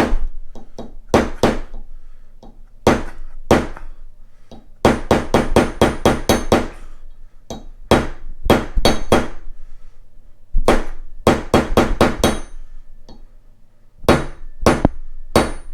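Hammer blows on a Delrin polymer punch, drifting a Glock rear sight sideways into its dovetail: sharp taps in bursts, some in quick runs of about five a second, each with a brief metallic ring. The sight is moving, but slowly.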